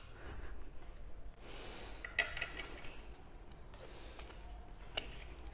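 Plastic bottle and its cap being handled and closed: soft rustling with a few sharp clicks, the clearest about two seconds in and another near the end.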